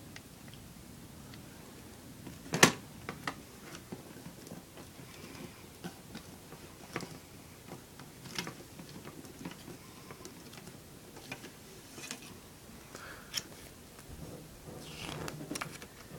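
A plastic CD jewel case handled by hand: scattered clicks and taps, with one sharp click about two and a half seconds in. Paper rustles near the end as the booklet is slid out of the case.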